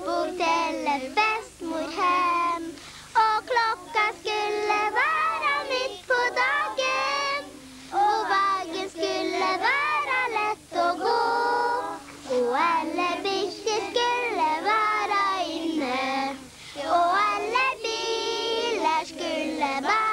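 A young child singing a Christmas song in short sung phrases.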